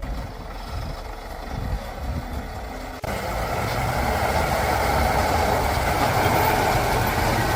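Heavy truck engine running steadily, jumping suddenly louder about three seconds in.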